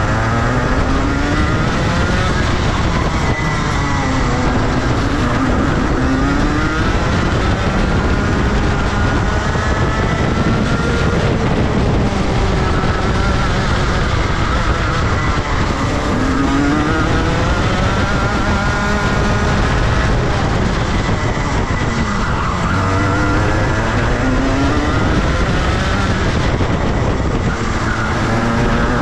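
Rotax Max 125 cc single-cylinder two-stroke kart engine running hard on a lap, its pitch climbing on each straight and dropping off into the corners, over and over.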